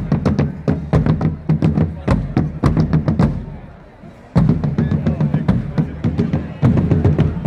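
Marching drum corps playing field drums and bass drums, a fast, even pattern of strikes. The drumming breaks off about three and a half seconds in and starts again abruptly just under a second later.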